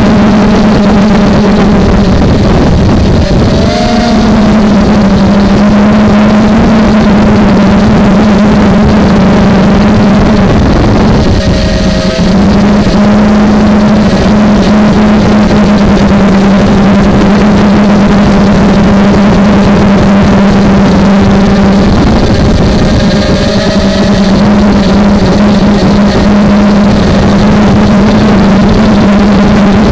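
Brushless motors and propellers of a home-made 250-size FPV quadcopter, recorded from its onboard camera: a loud, steady buzzing whine that shifts in pitch briefly three times, about 4, 12 and 23 seconds in. The motors are old, which the owner blames for the poor sound.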